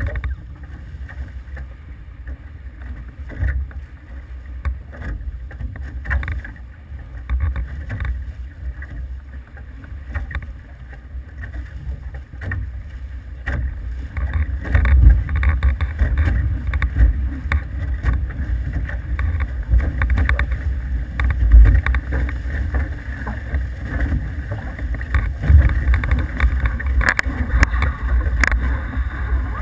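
Wind buffeting the microphone and water rushing past the hulls of an F18 sailing catamaran under way. It grows louder and gustier about halfway through.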